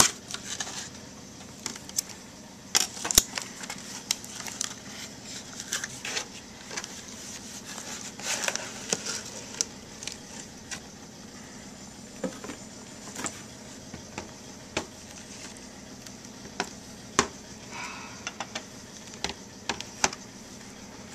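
Cardboard trading card box and its packaging being handled: irregular clicks and taps with short crinkling rustles, busiest in the first half.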